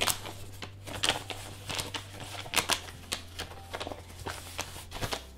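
A crumpled sheet of lined paper rustling and crackling in irregular bursts as it is unrolled and smoothed out by hand.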